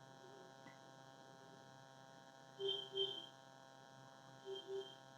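Faint steady electrical hum, with two pairs of short chirps, one about three seconds in and another near the end.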